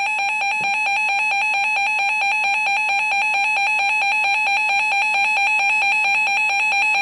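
Emergency Alert System attention tone on a NOAA Weather Radio broadcast, the alarm that comes before a warning message. A loud, steady electronic tone pulsing several times a second.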